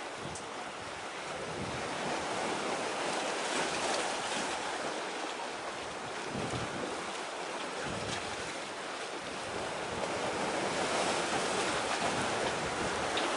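Sea waves washing and breaking in a steady rushing noise that swells and eases, with wind buffeting the microphone now and then in brief low rumbles.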